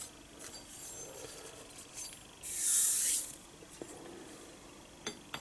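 A steel vise part slid across another metal surface with a short scraping hiss, then a few light metallic clicks as the parts are set down and handled.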